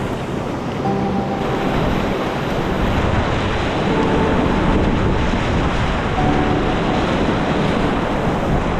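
Rushing whitewater of a river rapid, a steady churning roar, with wind buffeting the microphone.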